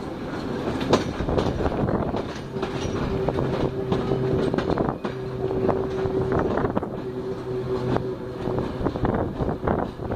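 Passenger train running slowly, its wheels clicking and knocking irregularly over the rail joints beneath a steady rumble. A steady low tone comes in about two seconds in and fades out near the end.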